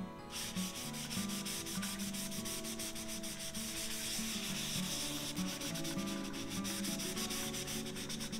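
Cloth rubbed briskly back and forth over a cardstock book cover: a dry, rhythmic scrubbing of several strokes a second that starts a moment in.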